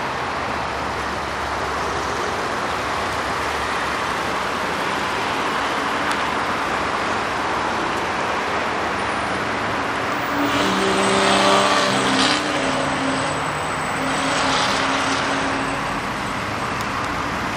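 Steady road traffic noise. It swells as a louder vehicle goes by about ten to twelve seconds in, its engine note briefly standing out, with a smaller swell a few seconds later.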